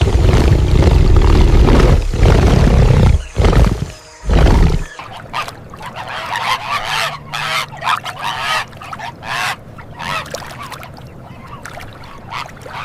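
Geese honking, loud and dense for about the first five seconds, then quieter, scattered calls with a hiss behind them.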